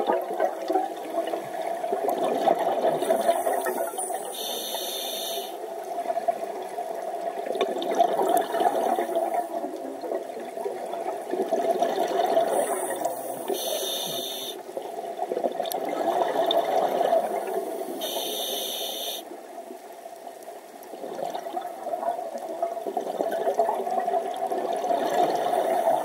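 Underwater scuba breathing: long rushing surges of exhaled bubbles from the diver's regulator, broken about three times by a short hiss of the regulator as the diver inhales.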